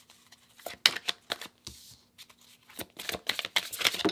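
A deck of tarot cards being shuffled by hand: quick runs of crisp card snaps and flicks, one spell about a second in and another from about three seconds on, with a quieter pause between.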